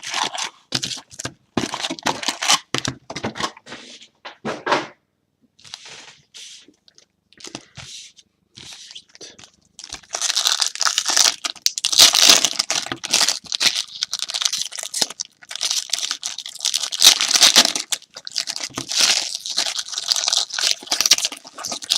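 Trading-card pack wrappers being torn open and crinkled by hand: scattered rustling and tearing bursts, quieter for a few seconds in the middle, then loud, almost continuous crinkling from about halfway through.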